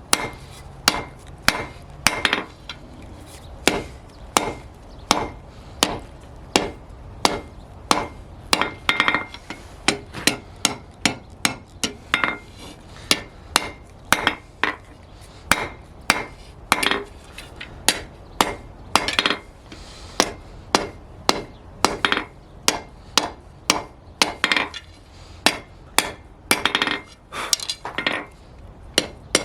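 Hand hammer striking a steel flat bar on an anvil in a steady run of blows, about two a second, each with a short metallic ring.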